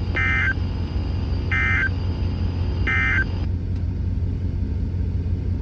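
Three short warbling data bursts about 1.4 s apart from a weather radio broadcast: the SAME end-of-message tones that close an emergency alert. A steady low rumble runs beneath.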